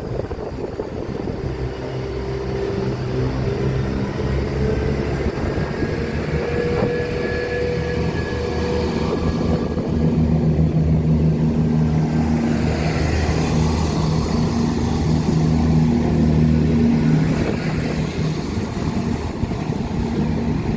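Class 171 Turbostar diesel multiple unit's engines running under load as it pulls away, a steady low drone that builds to its loudest over the middle of the stretch and then eases off.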